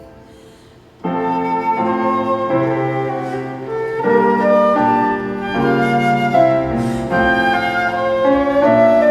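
Flutes playing a slow piece in several parts: a phrase dies away, and about a second in the music starts again with held notes moving in steps.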